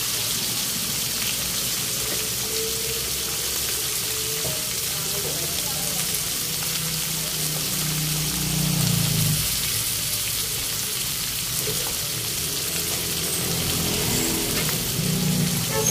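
Whole round scad (galunggong) frying in hot cooking oil in a wok: a steady sizzle.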